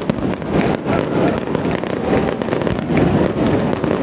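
Aerial fireworks shells bursting overhead in a dense, continuous crackle of rapid pops over a low rumble.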